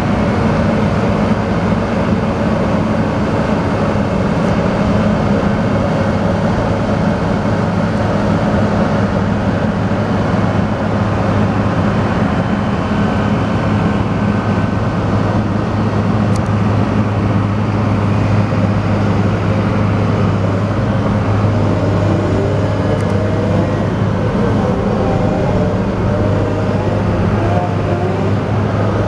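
Fuchs MHL340 wheeled material handler's engine running steadily, with the machine's hydraulics working the boom and elevating cab. A wavering higher tone joins from about two-thirds of the way through.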